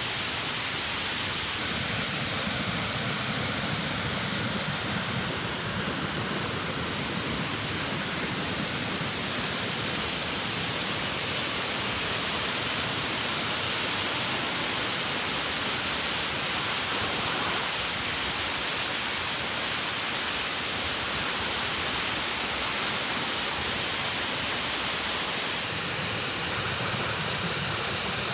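Steady rushing of a large, powerful waterfall carrying a lot of rainy-season water.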